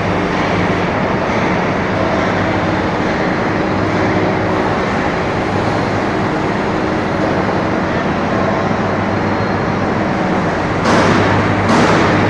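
Preet backhoe loader's diesel engine running steadily with a low hum, with a louder rushing surge about a second before the end.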